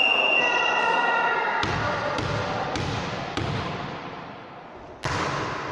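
A ball striking a hard sports-hall floor or wall: about five sharp thuds at uneven intervals, the last and loudest near the end, over steady hall noise.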